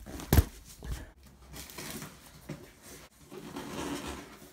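Cardboard parcel being handled and its packing tape cut open: faint scraping and rubbing, after a sharp knock just after the start.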